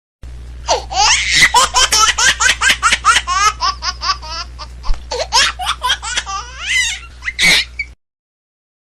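Long run of rapid, high-pitched laughter in quick repeated bursts over a steady low hum; it starts and cuts off abruptly, about eight seconds in.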